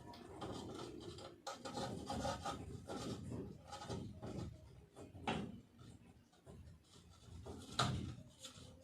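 Irregular scraping and rubbing as a ceiling light fixture is handled and fitted into place, with two sharper knocks about five and eight seconds in.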